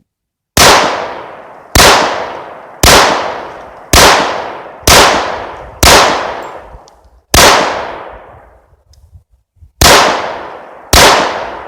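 Nine gunshots from a semi-automatic gun, fired about a second apart with a couple of longer pauses toward the end, each ringing out in a fading echo. The last shot empties the magazine and the action locks open.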